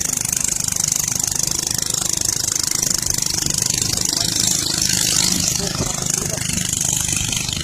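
Engine of a wooden river longboat running steadily under way, with a constant hiss of water and wind rushing past the boat.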